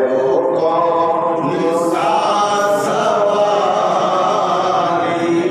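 Men's voices singing a Sufi manqabat in long, drawn-out lines with no instruments heard; the melody climbs higher about two seconds in.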